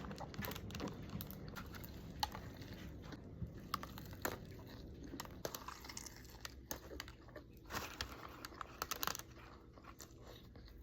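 Eating sounds: quiet chewing and the crinkle of a paper food wrapper, with scattered small clicks and rustles.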